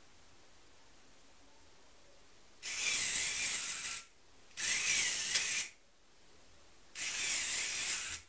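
LEGO Power Functions motor and gearing whirring three times, about a second each, each run throwing the train switch's points over to the other track.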